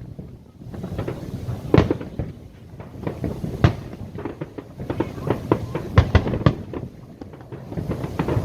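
Aerial fireworks going off: an irregular string of bangs and crackles over a continuous low rumble, with sharper, louder bangs every second or two.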